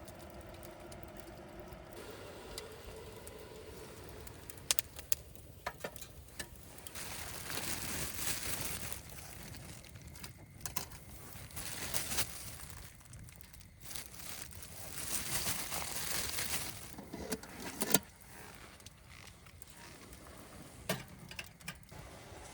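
Cooking gear and food being handled: scattered sharp clinks and taps, with two stretches of rustling or crinkling about seven and fifteen seconds in.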